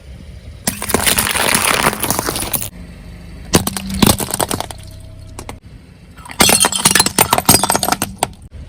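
Brittle objects being crushed, likely under a car's tyre, with glassy cracking, crunching and clinking. It comes in three bursts: a long one about a second in, a short one near the middle, and another long one near the end.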